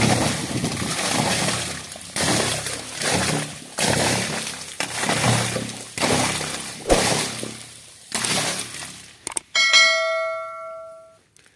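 Clods of soil pushed into an open borewell pipe, rattling down to the water inside, a noisy rush that fades each time, repeated every second or two. Near the end a bell-like ding chime sounds once.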